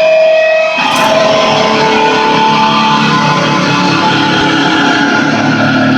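Fender Jazzmaster electric guitar played loud, held notes ringing together in a dense, noisy wash, with a sharp new attack about a second in.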